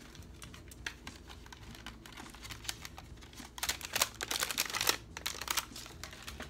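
Rummaging through paint bottles: quick clicks, knocks and rustles as plastic bottles are picked up and shifted about, busiest from about three and a half seconds in until near the end.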